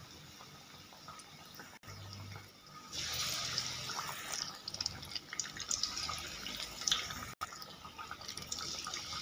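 Batter-coated banana pieces deep-frying in hot oil in a kadai: a steady sizzle with small crackles, growing louder about three seconds in.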